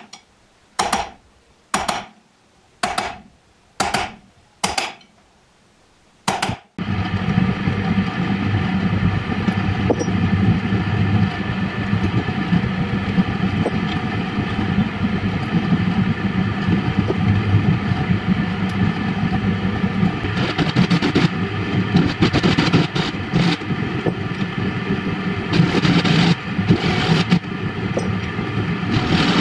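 A pointed steel marking tool scratching short strokes on steel angle iron, about one stroke a second, for the first few seconds. Then a drill press motor runs steadily while a twist drill bit bores through the steel angle, held in a drill-press vise, with harsher cutting noise in two stretches near the end.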